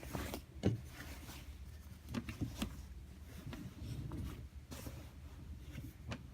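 Clothes being handled and sorted: soft rustling and rubbing, with scattered light clicks and knocks, the loudest a little under a second in.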